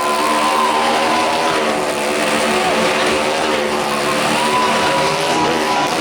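Motorcycle engine running steadily, its pitch wavering slightly up and down.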